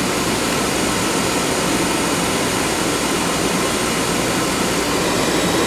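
Oil-fired furnace running, a steady loud rushing noise from the burner and its blower fan.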